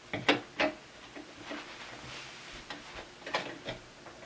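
Metal clicks and clinks as a chrome towel ring's base is fitted over its metal wall bracket: two sharp clicks in the first second, then lighter ticks and another pair of clicks a little past three seconds.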